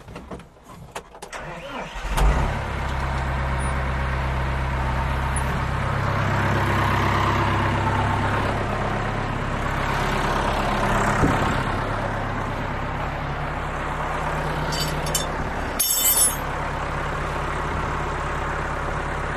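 Case 4230 tractor's diesel engine starting about two seconds in, then idling steadily: the warm-up run after a hydraulic oil and filter change, before the oil level is checked. A brief high, sharp noise sounds near the end.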